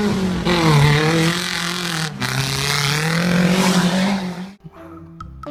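Race car engine revving, its pitch dipping and then climbing and falling again over a heavy hiss, cutting off suddenly about four and a half seconds in. Plucked guitar music starts right after.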